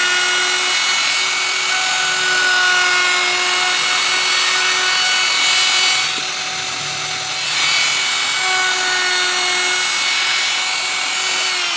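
Hand-held plunge router running at speed, its spinning bit cutting a carved relief into a wooden panel: a steady motor whine over the hiss of the cut. It dips briefly in level about six seconds in.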